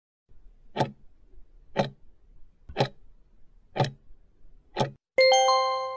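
Countdown-timer sound effect: five clock ticks about a second apart, then a loud bell chime near the end signalling that the answer time is up.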